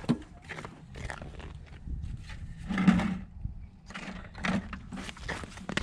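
Boots crunching and scuffing in quick, uneven steps on crusted snow over lake ice, with a heavier bump about three seconds in as a bucket of tip-ups is handled.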